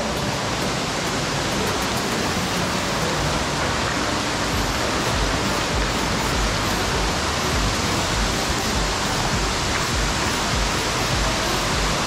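Steady, even rush of falling water: Tukad Cepung waterfall pouring into its rock canyon, mixed with rain.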